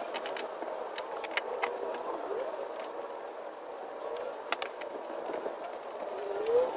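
Scattered light clicks and taps of hands fitting the rubber cover back over the fuel pump access hole, against a steady background noise.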